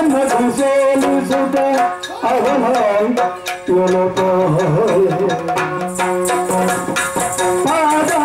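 Yakshagana music: the bhagavata singing a verse over a steady drone, with chende and maddale drumming and the ring of small hand cymbals keeping time.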